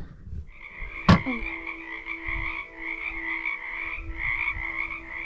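Chorus of frogs calling, a steady run of rapid pulsed croaks, with one sharp click about a second in.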